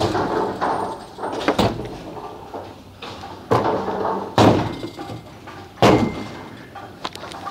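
Bowling alley sounds: a series of sharp crashes and heavy thuds from bowling balls hitting the lane and striking pins, about four loud hits over a busy background.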